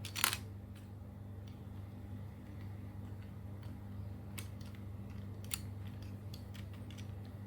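Plastic pieces of a budget 4x4 Rubik's cube clicking as they are pushed and slid into place during reassembly: a sharp click just after the start, two more in the middle and a few fainter ticks, over a steady low hum.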